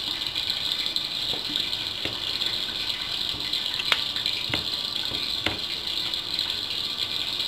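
Kitchen knife cutting broccoli florets off the stalk: about five short, sharp snaps and clicks at irregular intervals, over a steady hiss.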